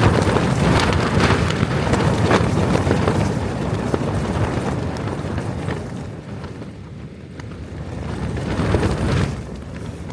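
Gale-force wind gusting against a tent, the fabric flapping and rattling hard, with wind buffeting the microphone. The blast eases about halfway through, then swells again before dropping away suddenly near the end.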